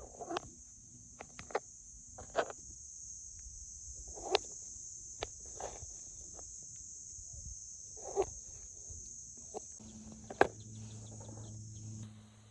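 Insects chirring steadily in one high continuous band, with scattered clicks and knocks. A low steady hum comes in about ten seconds in.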